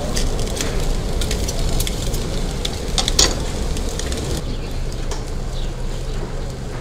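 Long doner knife shaving crisp meat off a vertical doner spit: a series of short crackling scrapes, the loudest about three seconds in, over a steady low rumble. A steady low hum joins about halfway through.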